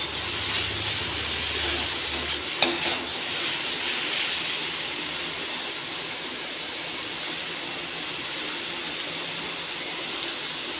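Cabbage and grated coconut sizzling in a kadai as a spatula stirs them, a steady frying hiss, with one sharp knock of the spatula on the pan about two and a half seconds in.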